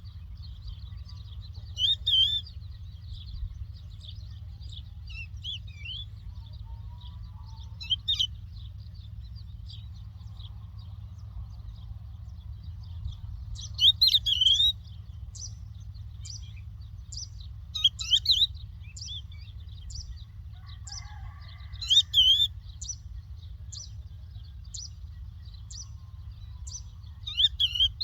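A lark singing: short, high chirping phrases every few seconds, with a run of quick single notes through the second half, over a steady low rumble.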